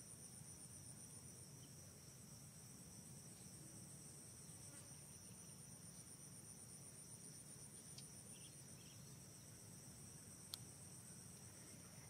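Faint, steady insect chorus: two high-pitched trills running without a break, with one sharp click about ten and a half seconds in.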